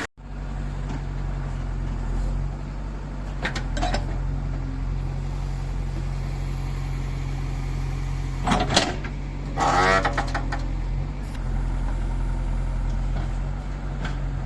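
Diesel engine running steadily, with a few loud clanks, the loudest about eight and a half seconds in, and a short pitched squeal near ten seconds.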